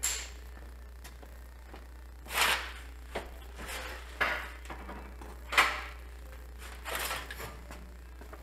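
Tools being handled off to the side in a workshop: about six separate clunks and clattering knocks, the loudest around two and a half and five and a half seconds in, over a steady low hum.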